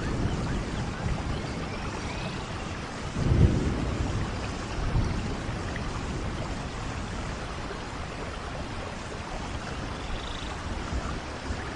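Steady rain, with a low roll of thunder about three seconds in that is the loudest moment, and a smaller rumble a second or so later.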